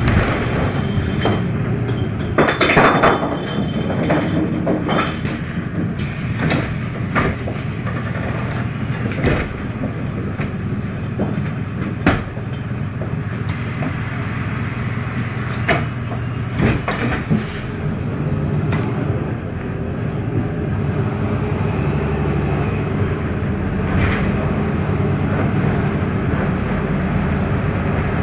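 Inside a VDL Citea 12 m city bus: a steady engine and road drone with scattered clicks and rattles from the bus body, and a brief louder clatter about three seconds in.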